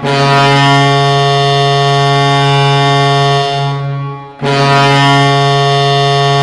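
Hockey goal horn blowing a deep, steady tone in long blasts: one lasts about four seconds and breaks off, and a second begins right after.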